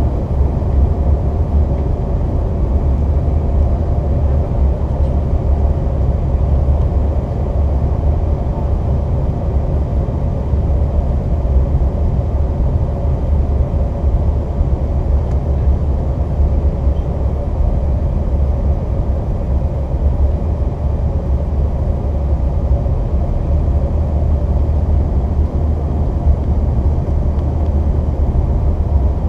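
Steady cabin noise inside a CRJ-700 regional jet on descent: a deep rumble of airflow and the rear-mounted jet engines, with a faint steady hum above it.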